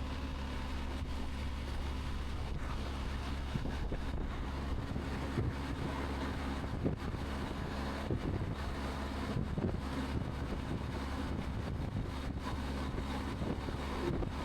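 Wind noise heard from inside a Sedici Sistema II modular helmet with the lid open, at the rider's ear at highway speed (about 65 mph) on a BMW R 1250 GS. It is a steady rush of wind with a low engine hum underneath and small irregular buffeting gusts.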